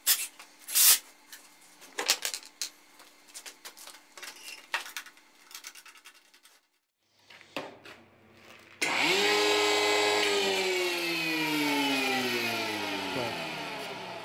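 Metabo HC 260 planer-thicknesser with freshly replaced bushings. First come scattered clicks and knocks as it is handled, then the motor starts suddenly about two-thirds of the way in and is switched off, its whine falling steadily as the cutter block spins down. It is running normally after the repair.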